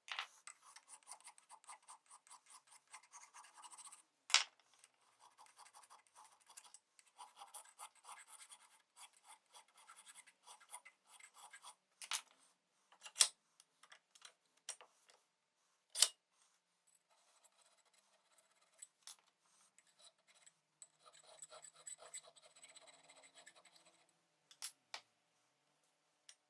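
Quick, repeated scraping strokes of hand abrasive work, such as filing or sanding, coming in runs with short pauses, with a few sharp clicks of a tool or part being set down or knocked.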